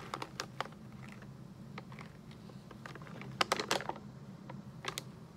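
A plastic coffee bag crinkling and crackling as it is handled and turned over, in scattered small clicks with a denser flurry about three and a half seconds in, over a steady low hum.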